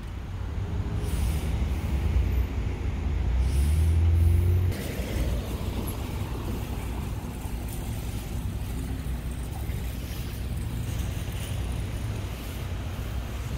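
Road traffic on a busy street: a low rumble of car engines and tyres that swells for a few seconds and cuts off abruptly about five seconds in. A quieter, steady outdoor hum follows.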